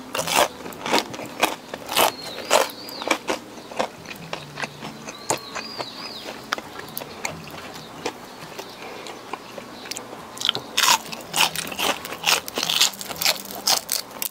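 Close-miked crunching bites and chewing of battered fried shrimp, with crisp crackles throughout. The crunches are loudest and most frequent at the start and again from about ten seconds in.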